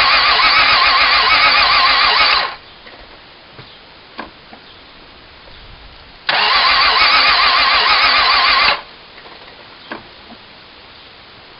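Starter motor cranking an engine that won't fire, in two bursts: the first cuts off about two and a half seconds in, the second runs about two and a half seconds, starting a few seconds later. The engine never catches, and there are faint clicks in between.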